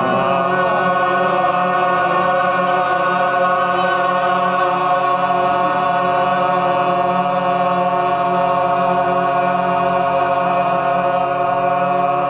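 Audience singing together on a loud, sustained "ah", holding the note steadily without a break.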